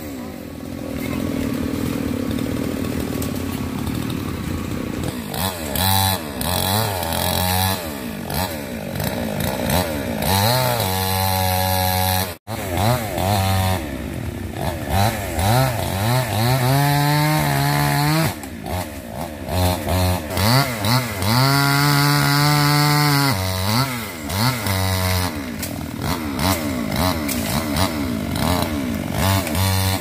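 Chainsaw cutting up a wind-felled tree, its engine revving up and dropping back again and again as it bites into the wood. The sound cuts out for an instant about twelve seconds in.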